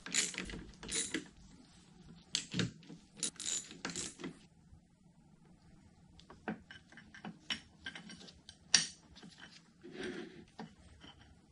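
Socket ratchet clicking in quick strokes as screws on an electric motor's bearing cap are driven, for about the first four seconds, then fainter, scattered metal clicks and clinks as parts are fitted onto the motor shaft.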